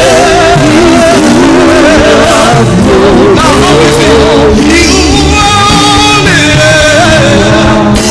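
Gospel worship song: singers holding wavering, vibrato notes over a steady band accompaniment, loud and continuous.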